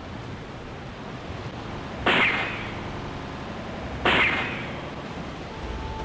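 Steady wash of the sea, with two sharp splashes about two seconds apart, each fading quickly.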